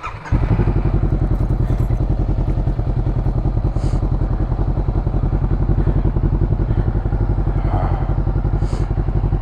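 Honda CBR500R's parallel-twin engine idling steadily, coming in abruptly just after the start.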